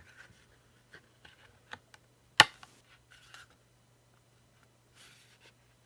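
A stiff plastic-and-rubber phone case being pried apart by hand: faint scrapes and rubbing, with one sharp plastic click about two and a half seconds in.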